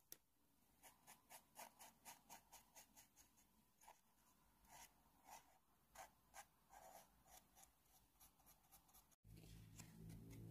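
Small paintbrush stroking stain onto wood: faint, quick scratchy strokes, a few a second. Near the end they stop abruptly and a low rumble begins.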